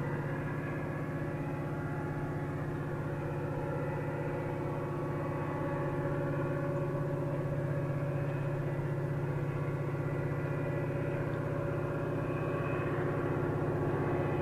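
Engine of a distant approaching diesel train, a steady pitched hum that grows slowly louder as it draws nearer.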